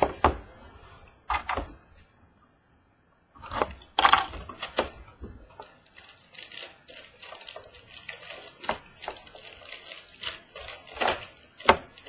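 Trading card packs and cards being handled, with crinkly rustling and a run of quick ticks and taps. There is a brief pause about two seconds in.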